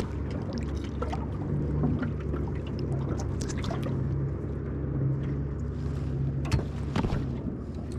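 Boat motor idling steadily, a low hum, with a couple of sharp knocks near the end.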